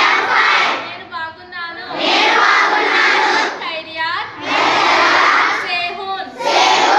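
A woman calls out short lines and a group of schoolchildren shout them back in unison, call and response, with a chorus reply about every two seconds.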